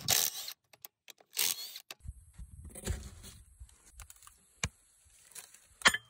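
Cordless impact wrench spinning out the bolts of a wheel loader's front axle hub cover, in short bursts near the start and about a second and a half in. Scattered clicks and knocks of metal follow, with a sharp click near the end.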